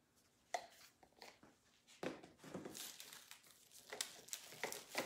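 Hands rummaging in a shipping box: packing material rustling and crinkling, with scattered light knocks as small plastic paint sample jars are handled.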